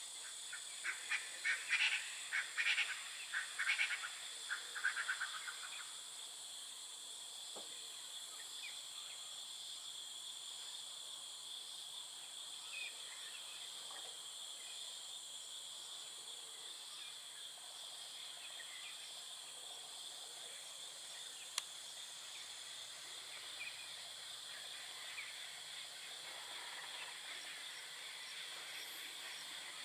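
Steady high-pitched insect chorus, with a bird calling a rapid run of loud, short notes through the first five seconds.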